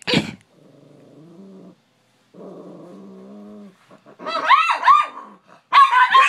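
Dog growling in two long, low, steady stretches after a sharp bark at the start. About four seconds in it breaks into a run of loud, high-pitched yapping barks, and another loud high burst comes near the end.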